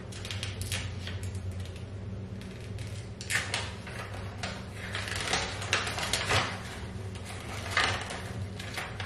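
Paper rustling and crinkling as an air fryer's instruction leaflets are handled and leafed through, in irregular bursts, over a steady low hum.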